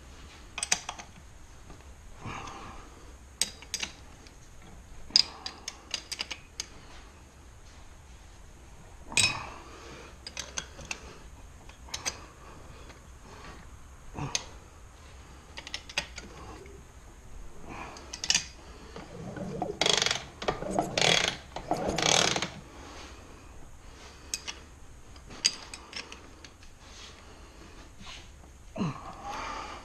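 Scattered clicks, taps and clinks of hand tools and small metal parts handled on a bench while working on a two-stroke dirt bike cylinder and its power valve, with a cluster of louder rattling about twenty seconds in.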